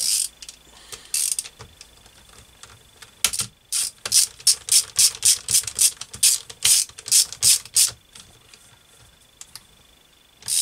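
Small socket ratchet clicking in quick strokes for several seconds, about four or five clicks a second, as it tightens the bolt that holds the gear-change lever on the engine's shift shaft. A couple of sharp metal clinks come in the first second or so.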